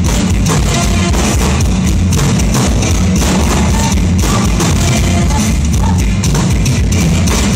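Loud rock-style stage-show music with a driving drum beat, guitar and a heavy, pulsing bass.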